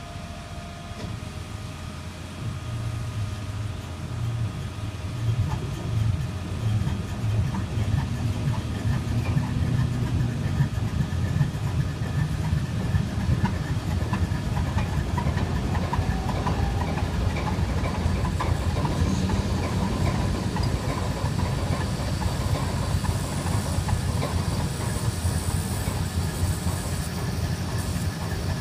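GE U23B diesel-electric locomotive's engine starting from cold: the low rumble builds up about two and a half seconds in and again a few seconds later, then settles into a steady run.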